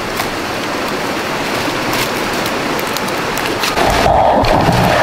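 Steady rushing of river water with scattered sharp snaps of twigs and rustling leaves underfoot. Nearly four seconds in, the rushing shifts to a louder, fuller sound.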